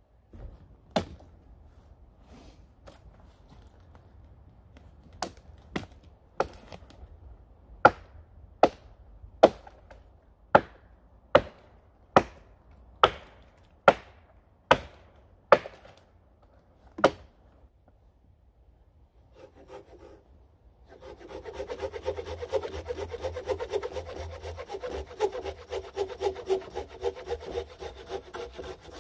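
A series of about fifteen sharp chopping strikes into wood, roughly one a second, as an axe works on a felled tree's branches. After a short pause a small hand saw cuts through a branch with quick, steady back-and-forth strokes.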